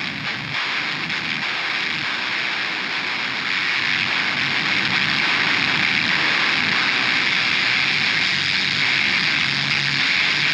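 Harsh electronic noise from a Forcefield 2000 PLL noise device: a dense, steady wall of noise centred in the upper mids, getting a little louder about three and a half seconds in.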